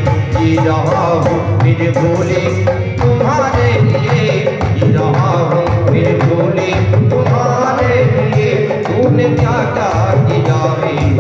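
Man singing a Hindi devotional bhajan into a microphone in long melodic phrases, over a steady hand-drum rhythm and instrumental accompaniment.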